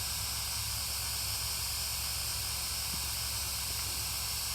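Steady, unchanging hiss with a low hum beneath it, and no distinct events.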